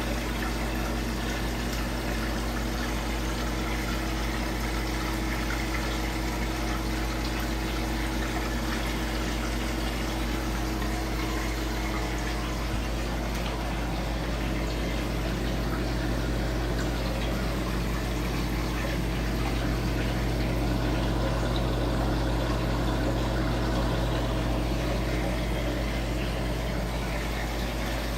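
Aquarium pump and filter running steadily, with water circulating and a constant low hum underneath.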